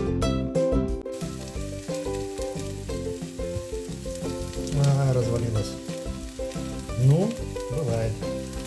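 Broccoli patties sizzling in a thin layer of hot oil in a nonstick frying pan, the sizzle coming up about a second in, while a plastic slotted spatula nudges and scrapes them, with a couple of sharper scrapes in the middle and near the end. Light background music runs underneath.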